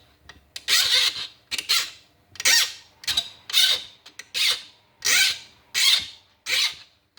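Hand file rasping across the steel edge of a homemade karambit blade in repeated back-and-forth strokes, about three strokes every two seconds, each a harsh scrape. It sounds horrible: the file is not biting well into the hard steel, which the owner guesses is high-carbon.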